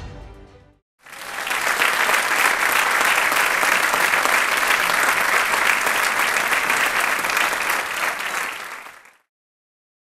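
Background music fading out, then about eight seconds of steady applause from a crowd, which stops abruptly near the end.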